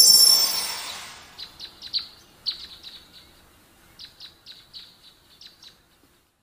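A noisy whoosh with high ringing tones that fades over about a second and a half, followed by a string of short, high bird chirps coming several a second in clusters, which stop about six seconds in.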